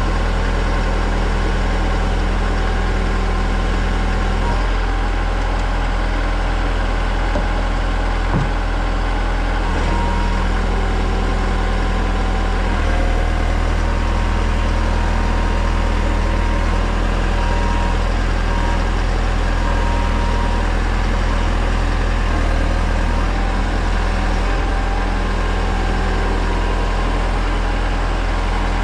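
Engine of a construction lift running steadily at low speed, its note shifting slightly a few times, with one short knock about eight seconds in.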